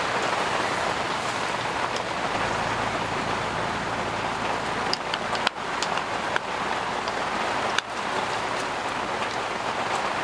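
Steady hiss of rain pouring down on the tent, with a few light clicks of metal chopsticks against steel camping bowls around the middle.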